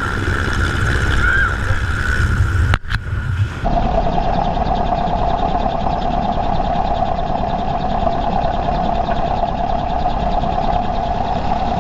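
Helicopter noise with wind rushing over the camera microphone: a steady high engine whine over loud wind. After a brief dropout a few seconds in, the slowed-down footage carries the same noise with the whine at half its pitch.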